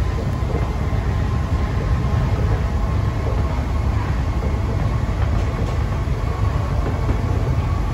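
Cabin noise inside an Alstom NS-16 rubber-tyred metro train running between stations: a steady low rumble with a faint steady whine.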